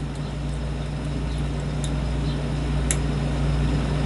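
A steady low mechanical hum, slowly growing louder, with a few faint sharp metal ticks from a lock pick working the pins of a lock cylinder, the clearest about three seconds in.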